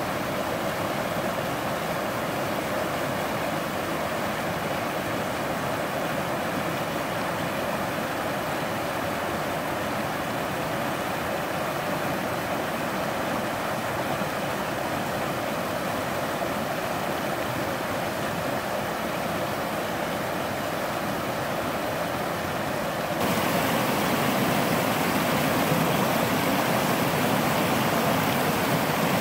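River rapids rushing steadily over rocks. About 23 seconds in, the sound abruptly gets louder and fuller, from a closer cascade of white water.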